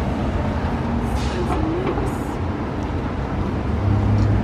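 Street traffic: a steady low rumble of passing vehicles, with a few light clicks and a low engine hum that swells near the end.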